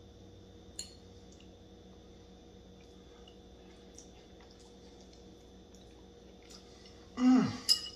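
A man eating spaghetti with a fork: a few soft clicks and wet mouth noises. Near the end comes a loud, short 'mmm' of appreciation, falling in pitch, followed by a sharp click.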